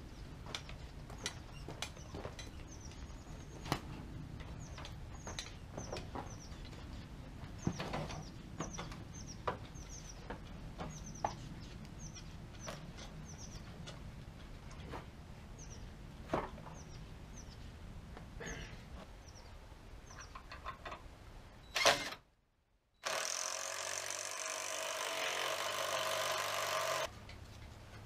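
Faint, repeated short, high chirps falling in pitch, typical of a small bird calling, over scattered light knocks and clicks. Near the end come a sharp knock, a moment of dead silence and about four seconds of louder steady rushing noise that stops abruptly.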